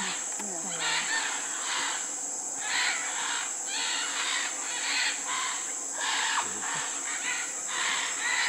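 A flock of macaws squawking: harsh, grating calls come several a second and overlap, with a short lull about two seconds in. Under them runs a steady high-pitched insect drone.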